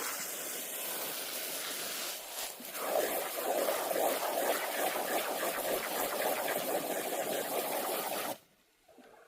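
Running water rinsing out dirty chicken bowls. The splashing grows louder about three seconds in and cuts off suddenly near the end.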